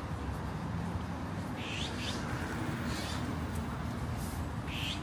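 Short, high bird chirps a few times, over a steady low hum of the street.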